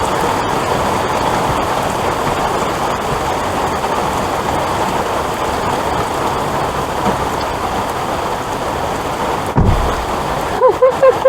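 Heavy rain pouring down in a steady hiss, with a single dull thump about nine and a half seconds in.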